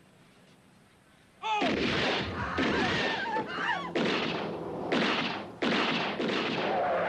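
A sudden loud start about a second and a half in, followed by a series of abrupt, loud blasts of noise with wavering squeals over them.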